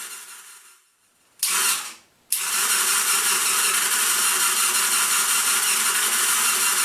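Small electric motor of a homemade string-and-pulley cat toy, running with a steady hum and hiss. It winds down to a stop about a second in, runs for half a second, then starts abruptly and runs steadily.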